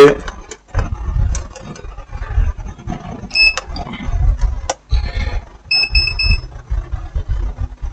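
Electronic beeps from bench test equipment: one beep a little over three seconds in, then four quick beeps around six seconds, over the low knocks and rustle of cables being handled and connected.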